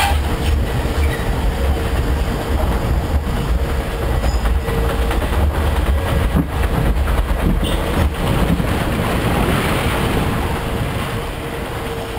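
Log flume boat running along its water channel: a steady low rumble with scattered clacks and knocks from the hull and track. Rushing water grows brighter in the last few seconds.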